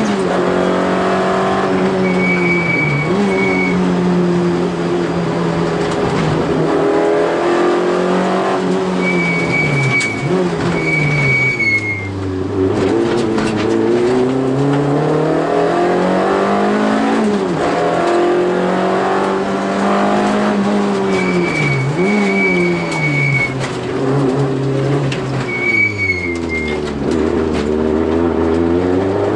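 Peugeot 205 rally car's four-cylinder engine heard from inside the cabin, driven hard at full throttle: the revs repeatedly climb through the gears and fall away for corners, dropping low twice on braking. Several brief high squeals from the tyres come in the turns.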